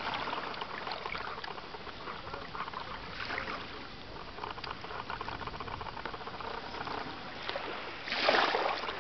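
Gentle lapping of shallow water at the shoreline, with a louder wash about eight seconds in.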